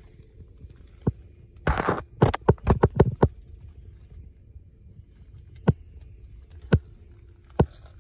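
Scattered sharp knocks and clicks over a low steady hum. About two seconds in there is a brief scrape and a quick run of knocks, then single knocks near the end, as someone moves around and climbs off the tractor.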